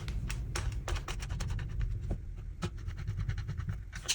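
Rapid small metallic clicks and scrapes of a small screwdriver driving the screws of the hard-drive securing bar back into the laptop's chassis.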